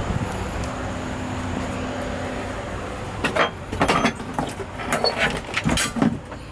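A steady running hum for about three seconds, then a string of irregular knocks and clatters as loose car interior parts are handled and set down.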